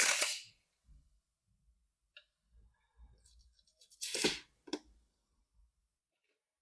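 Slime being squished and crunched by hand: a loud noisy burst at the start, another about four seconds in followed by a short one, with faint handling sounds between.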